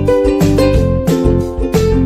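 Background music led by plucked strings, a quick run of short notes.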